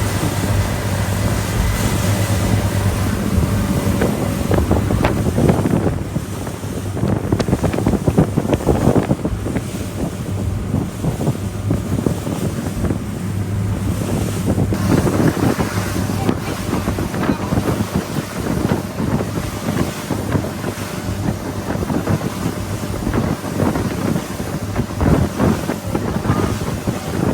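Boat under way on open sea: wind buffeting the microphone and water splashing and rushing past the hull, over a steady low engine hum that is strongest in the first few seconds.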